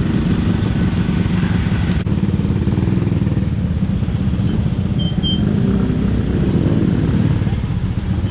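Honda C90's small single-cylinder four-stroke engine running steadily as the bike rides off, with a dense low putter of firing pulses.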